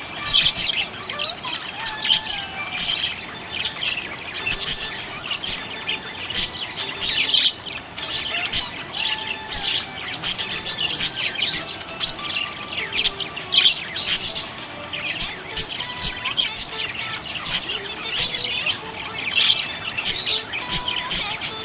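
Budgerigars chirping continuously in quick, high, overlapping chirps and warbles.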